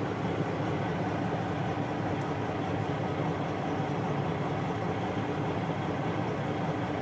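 Detroit Diesel Series 60 14-litre inline-six diesel idling steadily, heard from inside the truck's closed cab.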